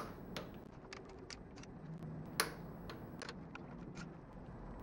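Socket wrench and extension clicking and ticking against metal as bolts on the exhaust manifold are worked. The clicks are irregular, with two sharper ones at the very start and about two and a half seconds in.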